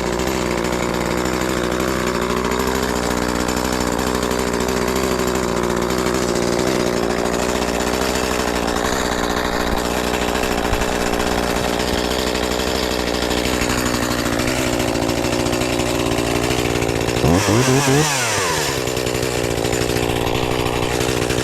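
Shindaiwa 280TS top-handle chainsaw's small two-stroke engine running steadily, its pitch wavering a little early on, then revving sharply up and back down for about a second, about seventeen seconds in.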